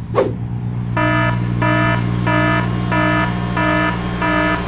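Ventrac articulating tractor's engine running steadily, with an electronic warning beeper sounding over it from about a second in, roughly three beeps every two seconds.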